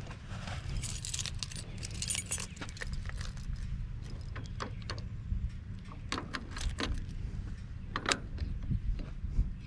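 A bunch of keys jangling and clicking against the metal lock of a truck-bed trimmer rack as the string trimmer is unlocked, a scattered run of small metallic clinks over a low steady hum.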